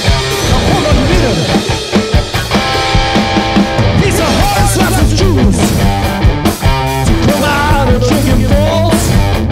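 Live punk-blues rock band playing an instrumental passage: distorted electric guitar with bending, sliding notes over a driving drum kit, with no singing.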